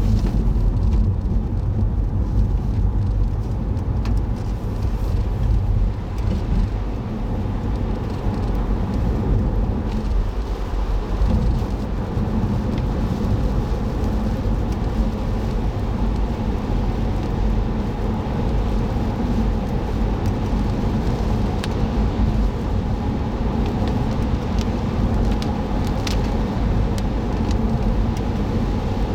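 Car driving with the steady hum of its engine and the rumble of its tyres on the road, picked up by a dashboard camera inside the cabin, with a few faint ticks here and there.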